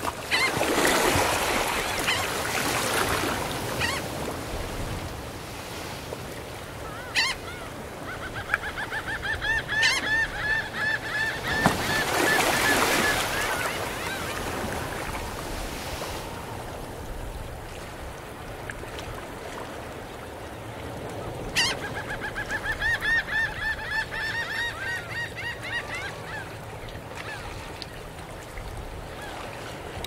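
Gentle ocean waves breaking and washing up a sandy beach, the surf swelling near the start and again about halfway through. Over it, seagulls call in two long runs of rapid repeated cries, one starting about a quarter of the way in and the other about two-thirds of the way in.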